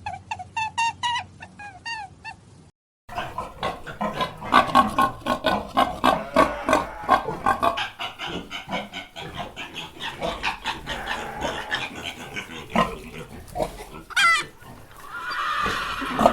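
Pigs grunting and oinking in quick, irregular calls for about eleven seconds. Before that, a bird calls in rapid repeated chirps, cut off abruptly about three seconds in.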